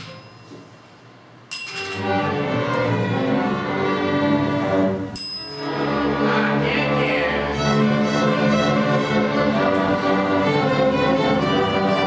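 String orchestra with piano playing a quiet passage, then coming in loudly and suddenly about a second and a half in, with another abrupt change about five seconds in. Each new section opens with a sharp, ringing high strike.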